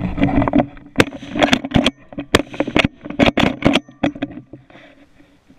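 Handling noise close to the microphone of a gun-mounted camera: a rapid, irregular run of sharp knocks, clicks and scrapes with rustling, lasting about four seconds and then dying away.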